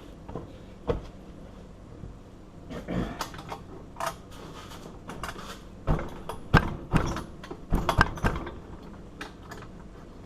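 Scattered metal clicks and knocks from handling a padlock and the tools after one side of its shackle has been cut through. The knocks come thickest about six to eight and a half seconds in.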